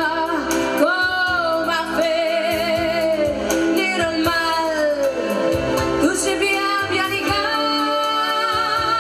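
A woman singing live into a microphone over a band, amplified through stage speakers, holding long notes with vibrato and sliding down between some of them.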